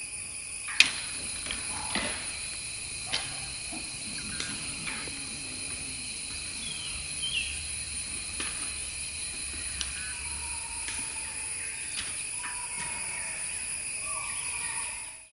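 Wild forest ambience: a steady insect chorus at several high pitches, with scattered sharp clicks and knocks, the loudest about a second in, and a brief bird call about seven seconds in.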